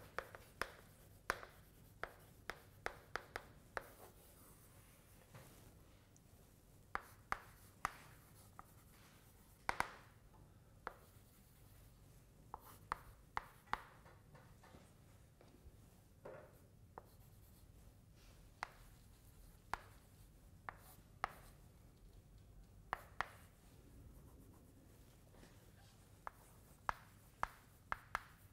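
Chalk tapping and scratching on a blackboard as someone writes and draws, in irregular clusters of sharp taps with short pauses between.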